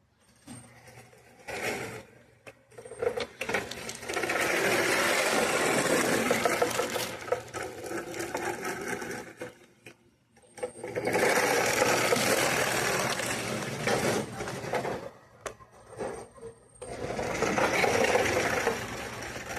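Homemade RC car's small electric motor and drive gears whirring, run in three long bursts after a few short blips.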